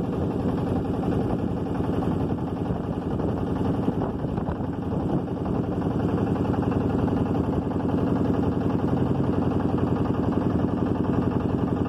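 Motorboat engine running steadily, with a fast, even throb.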